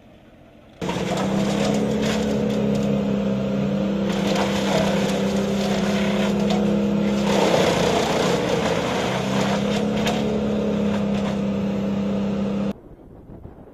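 Loud engine running with a steady drone, cutting in abruptly about a second in and cutting off abruptly shortly before the end. Midway the drone briefly gives way to a rougher, noisier stretch.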